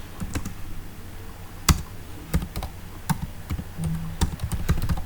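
Typing on a computer keyboard: irregular keystrokes with short pauses, one louder key strike about a third of the way in.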